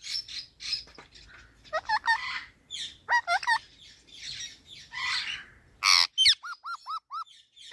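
Pet parrot calling: a run of harsh squawks mixed with short, looping whistled notes, ending in four quick identical whistles.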